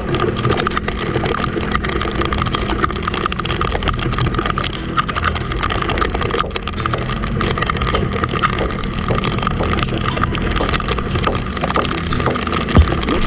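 Sundown Next 250 motorcycle running steadily on the road, heard under a constant rush of wind and road noise, with many small crackles.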